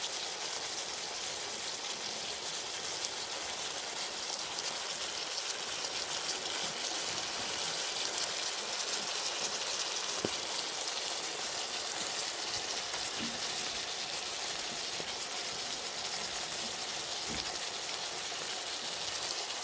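Chicken and tagliatelle stir fry sizzling in a wok: a steady hiss, with a few faint taps about halfway through and near the end.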